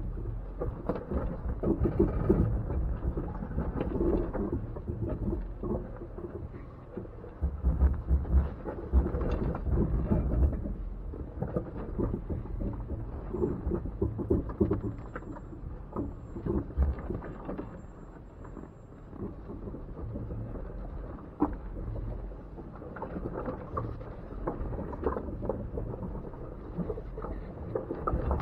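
Jeep Wrangler crawling slowly over a rock trail: a low engine and drivetrain rumble with scattered knocks as the tyres and underbody work over the rocks.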